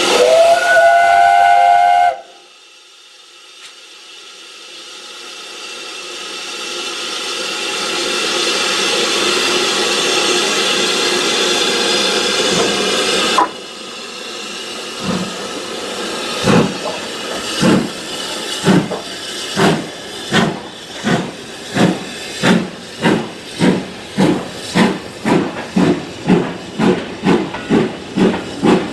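Steam locomotive, a BR Standard Class 5 4-6-0, sounding its whistle: one note that rises as it opens and is held about two seconds, then cuts off sharply. A long steady hiss of steam follows, then exhaust beats as the engine starts its train, quickening to about two a second.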